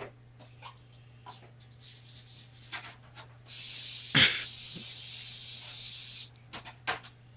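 Aerosol cooking spray hissing steadily for about three seconds as it coats a baking pan, with a sharp knock partway through and light clicks of handling before and after.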